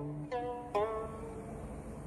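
Background music of a plucked Chinese zither: three notes in the first second, each sliding up in pitch as it sounds, then ringing out.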